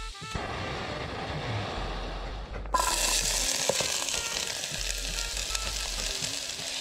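Chopped onions sizzling in a hot aluminium camping pot on a screw-on gas stove, the sizzle starting suddenly and loudly about three seconds in, over background music with a steady bass line.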